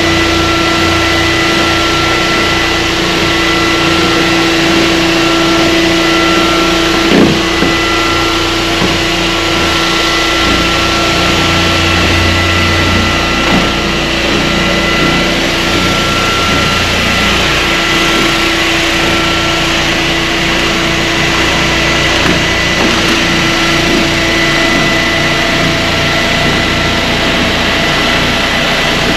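A floor sanding machine running steadily on a wood floor, a constant loud mechanical noise with a steady hum under it. There are two brief knocks, about seven and thirteen seconds in.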